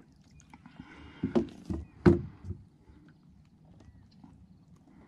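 A hooked largemouth bass being landed beside a plastic fishing kayak: a short run of sharp knocks and splashes, the loudest about two seconds in.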